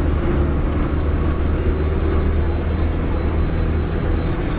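Inside a Mumbai BEST city bus while it runs: a steady low engine drone with road and cabin rattle noise over it.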